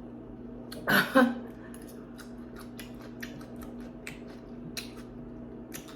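Close-miked mouth sounds of someone eating noodles: a scatter of wet chewing clicks and smacks, with one louder, longer mouth sound about a second in, over a steady low hum.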